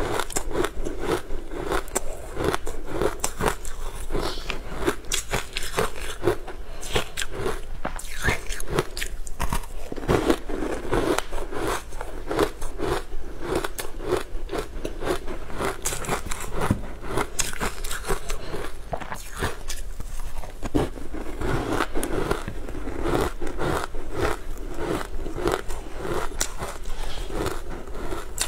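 Biting and chewing a frozen block coated in green powder: dense, continuous crunching and crackling.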